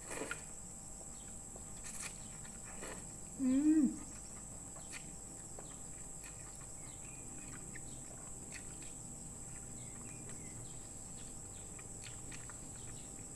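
Quiet eating sounds of misua noodle soup: thin noodles slurped off a fork and chewed, with a few short sharp sucking or slurping noises and a brief hummed, pitched vocal sound about three and a half seconds in, over a steady faint high-pitched hiss.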